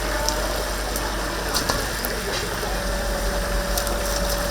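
Whole chickens deep-frying in a vat of oil: a steady sizzling hiss, with a few light clicks of metal utensils about one and a half to two and a half seconds in.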